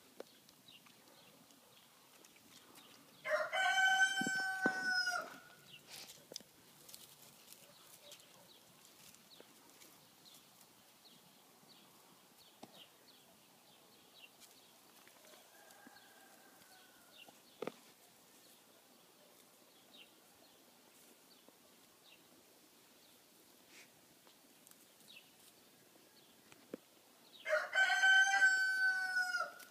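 A rooster crowing twice, each crow about two seconds long, the first a few seconds in and the second near the end. Faint scuffs and ticks in between.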